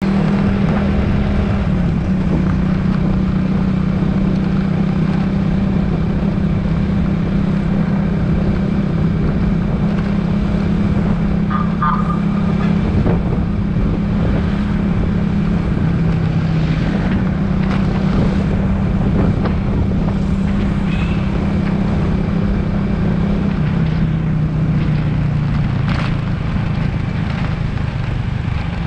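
Motorcycle engine running steadily at road speed, with wind rumbling on the microphone. The engine's pitch drops a little about three-quarters of the way through.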